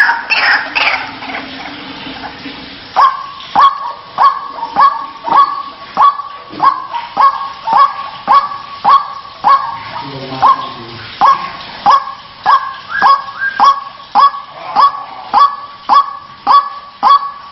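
White-breasted waterhen (ruak-ruak) giving its harsh, croaking "kruak" call over and over, about two calls a second, starting loud about three seconds in after a quieter, muddled stretch.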